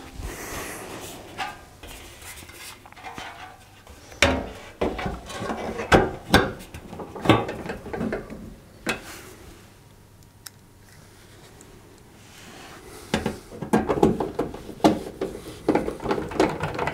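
Metal heater cover being fitted to a Zanussi tumble dryer's sheet-metal back panel and screwed down with a hand nut driver: scattered metallic clanks, knocks and scrapes. There is a quieter stretch about ten seconds in, then a denser run of knocks near the end.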